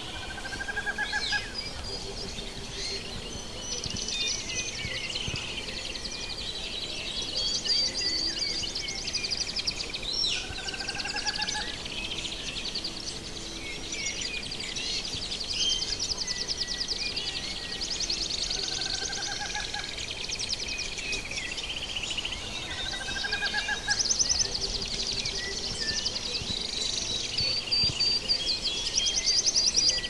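Forest ambience of many birds singing and chirping, with fast trills and a short rising whistled call that comes back four times.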